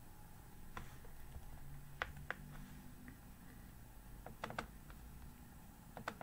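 Faint computer mouse clicks: a few scattered single clicks and quick pairs like double-clicks, as parts are picked from a list in circuit-design software.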